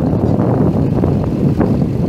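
John Deere 7830 tractor's 6.8-litre six-cylinder turbo diesel running steadily, with wind buffeting the microphone.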